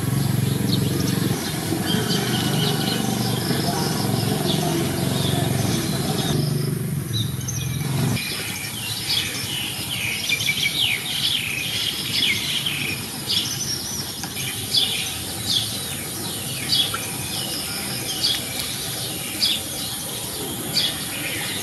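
Small birds chirping outdoors: many short, high, quickly falling chirps in clusters, thickest in the second half. For the first eight seconds or so a low steady hum runs underneath, then stops.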